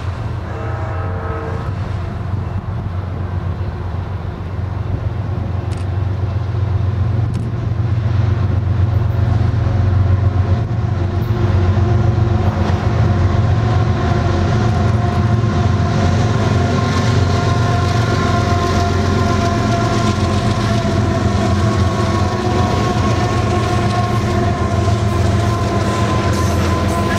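Union Pacific diesel-led double-stack container train approaching and passing, its locomotives' engines rumbling steadily, louder as they come by. Then the loaded container well cars roll past with steady wheel-on-rail noise and a held tone. A short horn note sounds about a second in.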